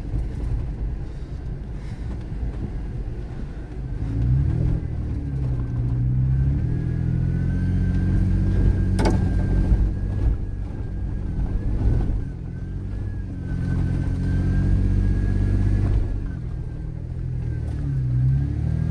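Vehicle engine and drivetrain running over a dirt trail, heard from inside the cab, pulling harder twice with the engine note climbing, with a thin steady whine over the middle stretch. One sharp knock about nine seconds in.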